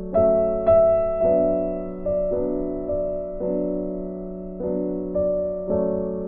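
Background music: soft piano, notes and chords struck and left to fade.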